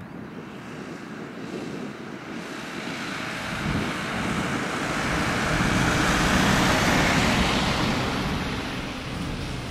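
Boeing 747 freighter's four jet engines roaring as the airliner rolls down the runway after touchdown. The noise swells to a peak about two-thirds of the way through, then eases a little.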